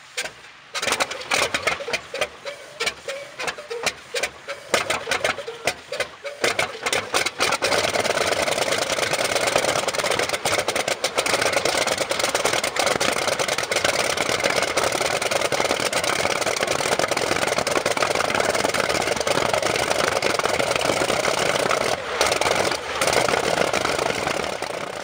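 A Kamov Ka-26 helicopter's radial piston engine on a cold start: irregular coughs and pops for the first several seconds, then it catches at about seven seconds and runs steadily.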